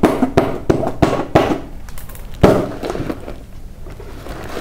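A pen tapping on a paper sheet in quick sharp taps, about three a second, then one louder knock about two and a half seconds in. After it comes quieter rustling as a hand pushes into the paper and tears it.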